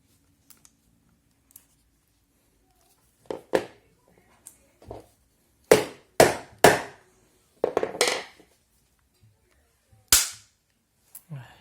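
Hammer striking a flat-blade screwdriver wedged into the glued seam of a plastic laptop charger case to split it open. About ten sharp strikes come at irregular intervals, the loudest a run of three about six seconds in.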